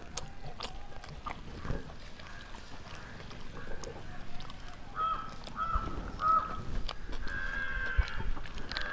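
Chickens calling: three short calls about five seconds in, then a longer drawn-out call, with a few faint clicks.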